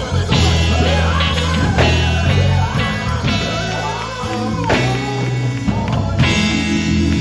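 Live gospel band music: electric guitar lines over a bass and drums, with some singing mixed in.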